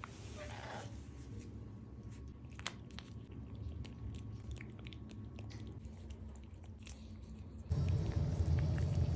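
A cat eating a lickable paste treat: small wet clicks of licking and chewing over a low steady hum. A louder low rumble comes in near the end.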